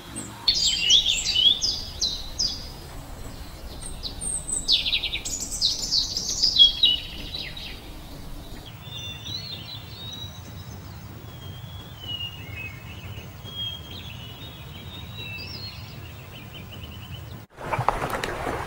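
Small birds singing and chirping, with quick busy trills for the first eight seconds or so, then softer scattered calls. Near the end this gives way to loud splashing water as a hippopotamus surges through a river.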